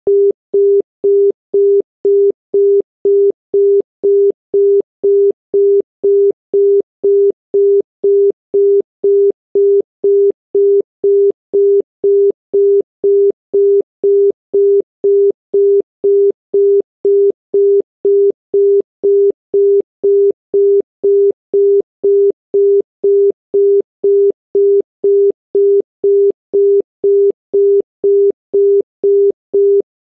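Japanese private-branch-exchange dial tone ('Dial B'): a single 400 Hz tone beeping a quarter second on, a quarter second off, about two beeps a second. It signals that the exchange is ready to receive the number being dialled.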